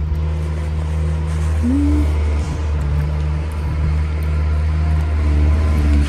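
A motor vehicle's engine idling close by: a steady low drone that holds the same pitch throughout. A brief short pitched sound is heard about two seconds in.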